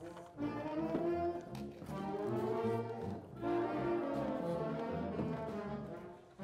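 Brass music: several brass instruments playing held chords together, with a short break about three seconds in and a fade near the end.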